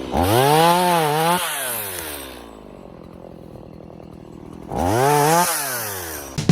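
Gas chainsaw revved up twice, each time climbing quickly to full speed, holding briefly, then winding back down toward idle.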